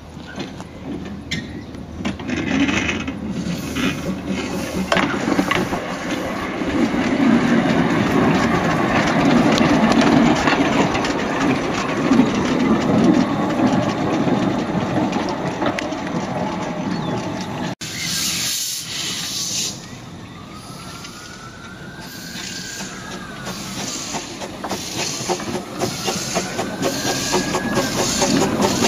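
Narrow-gauge railway locomotives on the move. First a diesel locomotive runs close by, its engine and running noise building to a loud, steady level. After a sudden break, a small steam locomotive moves slowly with a steam hiss and a few rising-then-falling squeals.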